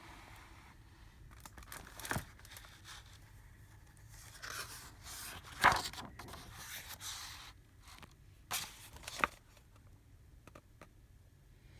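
Paper of a picture book being handled and turned: rustling and swishing pages with a few sharp taps, the loudest swish a little before halfway through.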